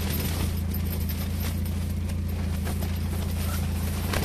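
A steady low drone, with a few faint clicks and rustles of hands handling fish and tackle.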